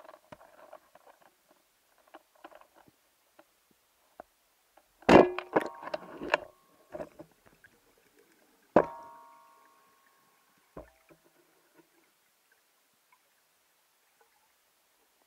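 Speargun shot heard underwater: a burst of sharp clicks and metallic clanks about five seconds in, then one hard clank with a short metallic ring a few seconds later and a fainter knock after it, as the spear shaft and its line clatter against the gun.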